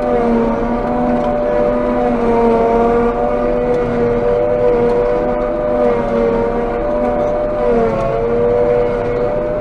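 Claas Jaguar 830 forage harvester heard from inside its cab while chopping: the engine and chopping gear run with a loud, steady high whine, which dips briefly in pitch about eight seconds in.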